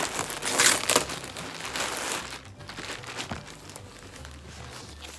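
Clear plastic bag crinkling as a top is pulled out of it, loudest in the first two seconds or so, then dying down to soft rustling.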